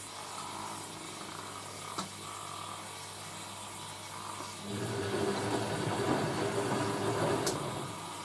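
Hoover A3060 Electronic 1100 washing machine running as it heads into its first spin: a steady low hum with a single click about two seconds in, then its motor starts up louder and rougher just before five seconds in.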